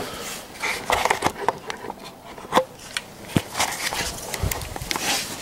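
Handling noise: scattered light clicks, taps and rubbing, with a few low thuds about four seconds in, as the camera is moved around the engine bay and hands work near the belt.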